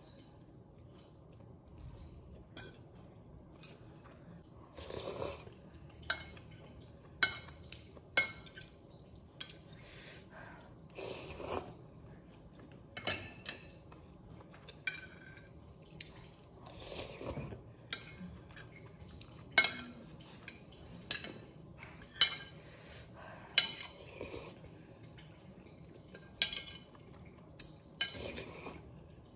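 A metal fork and spoon clink and scrape against a ceramic plate of instant noodles in broth. Every few seconds there is a short slurp of noodles being sucked up.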